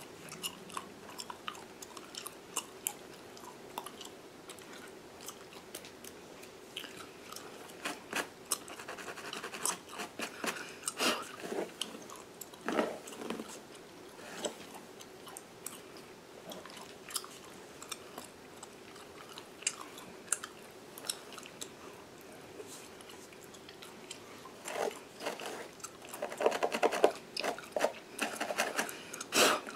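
Gum chewing and smacking close to the microphone: irregular wet clicks and smacks that come thicker and louder near the end. Under them, fingernails scratch and pick at a mannequin's scalp and hair.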